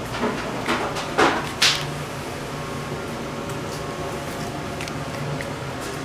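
Steady hum of a running gas furnace, with four short knocks and rustles in the first two seconds from things being handled.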